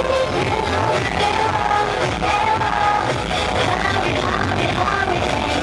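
Live K-pop dance song with a woman's lead vocal over a pounding beat, played loud through a stadium concert sound system.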